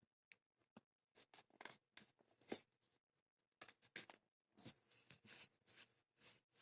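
Faint, irregular rustling and scraping of a smartphone's cardboard retail box and its seal being handled and opened by hand, with a short pause about halfway through.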